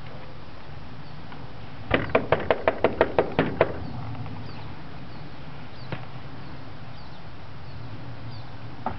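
A quick run of about ten sharp knocks in under two seconds, then two single knocks, from a young Morgan colt playing with a horse boot.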